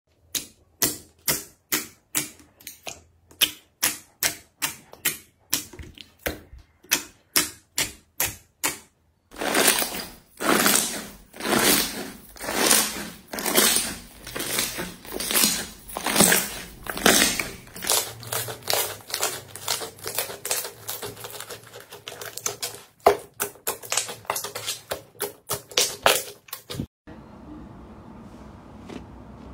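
Slime being pressed and poked by hand, giving rapid runs of sharp clicks and pops, denser and crackling from about nine seconds in, then dropping to a faint hiss near the end.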